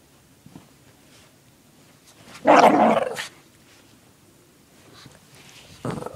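Shih Tzu giving a loud, rough growling bark of about a second during rough play with a blanket, about two and a half seconds in, with another starting near the end.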